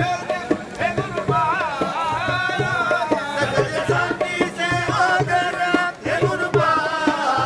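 Men singing a devotional bhajan together, with a double-headed barrel drum beating steadily under the voices.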